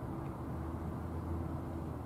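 Distant Boeing 787-9 jet engines heard across the water as a steady low rumble with a low hum.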